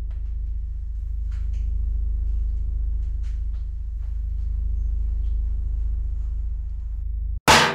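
Horror-film soundtrack drone: a loud, steady low rumble that holds evenly, then a sudden loud crashing hit near the end that cuts off abruptly.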